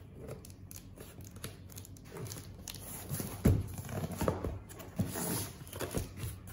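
Cardboard box being handled and turned over on a wooden tabletop, with scraping and irregular knocks, the loudest about three and a half seconds in.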